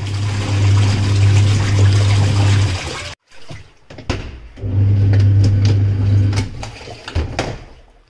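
Haier semi-automatic washing machine agitating a load of laundry: the motor hums steadily under the sloshing, churning water. It stops a little under three seconds in, starts again around four and a half seconds, and dies away near the end.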